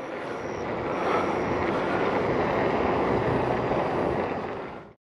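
Steady rushing road noise picked up by a handlebar-mounted camera while riding a bicycle on a street: wind on the microphone mixed with tyre and traffic noise. It swells about a second in, holds steady, then fades out near the end.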